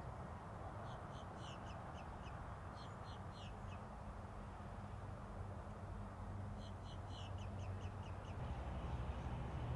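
A bird calling in two bouts of quick, high-pitched notes, one about a second in and another about six and a half seconds in, over a steady low background rumble.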